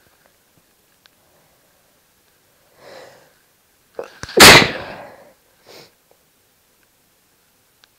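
A single loud, deliberately induced human sneeze about four and a half seconds in, with a soft breath a second or so before it and a short faint breath after.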